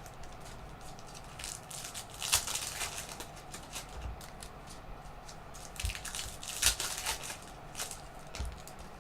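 Trading-card packaging and cards being handled: intermittent crinkling and rustling, with a few short sharper rustles about two and a half, six and seven seconds in.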